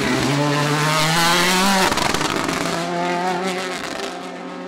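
Ford Puma Rally1 Hybrid rally car's turbocharged four-cylinder engine pulling hard, its note rising in pitch. About two seconds in the note drops abruptly to a lower pitch, and the sound then fades as the car moves away.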